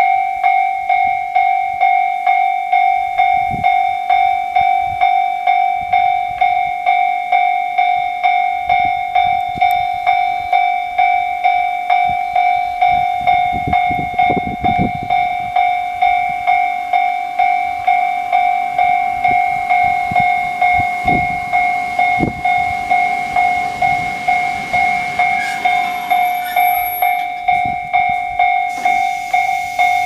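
A railway level-crossing warning bell ringing steadily in an even two-tone ding at a little over two strikes a second. Under it, a JR Hokkaido 721 series electric train runs in with low rail rumble and clatter, loudest about midway and again about two-thirds in, and draws to a stop.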